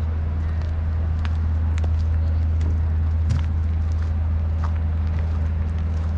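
Outdoor city ambience: a steady low rumble of distant traffic, with scattered faint clicks and ticks over it.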